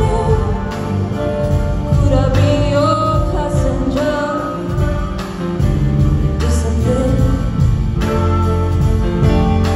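Live band playing with a woman singing lead, her voice carrying the melody over the band.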